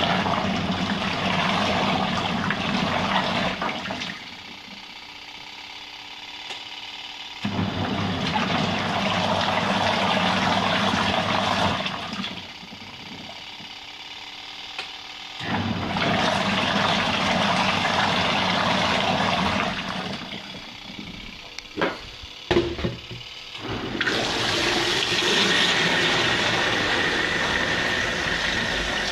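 Twin tub washing machine's wash tub agitating a load, water churning and sloshing in runs of about four seconds with quieter pauses between. A few sharp knocks come near the end, then a steadier run with a thin whine.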